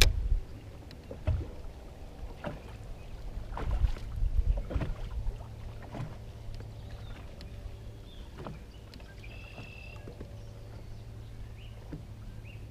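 Water lapping and slapping against a small fishing boat's hull, with several soft knocks, most of them around four to five seconds in, over a steady low hum.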